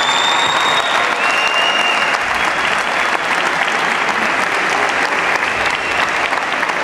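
Audience applauding steadily at the end of an acrobatic gymnastics routine, with a few high held tones over it in the first two seconds.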